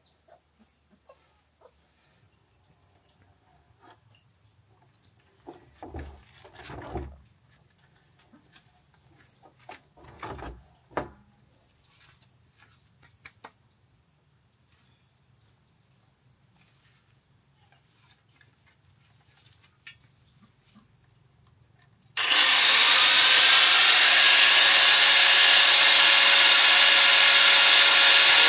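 A few light handling knocks and rustles, then a corded angle grinder starts suddenly about three quarters of the way in and runs steadily as it cuts into a plastic drum. The grinder is by far the loudest sound.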